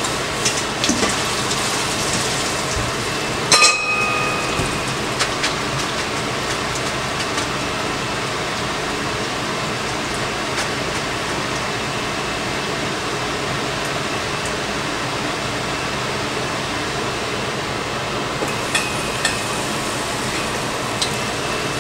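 Water running steadily into a kitchen sink as penne is drained and rinsed in a metal colander, with one ringing metal clank about three and a half seconds in and a few light knocks near the end.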